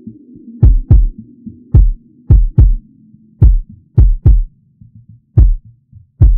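Background music: deep kick-drum hits, several in quick pairs, over a low sustained drone that fades away.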